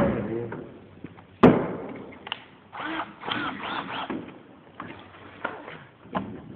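A single sharp knock about one and a half seconds in, then a run of short, high squeaks and a few fainter knocks, as parts are handled.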